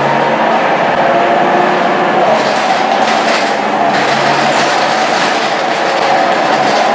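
Scania K230UB bus heard from inside while under way, with its diesel engine and ZF 6HP502C automatic gearbox running under load. A whine grows stronger near the end, and there are interior rattles about two to four seconds in.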